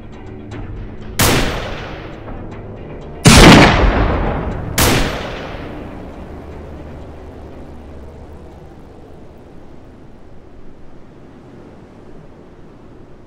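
Three loud blasts of a film battle soundtrack: the first about a second in, the second and loudest about two seconds later with a long, deep fading tail, the third a second and a half after that. A low steady hiss follows.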